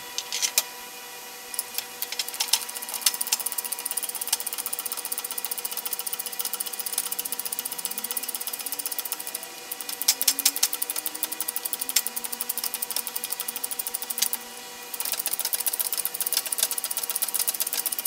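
Rapid, even metallic clicking, many clicks a second, in three runs broken by short pauses, as a lathe apron part is worked by hand in a steel frame.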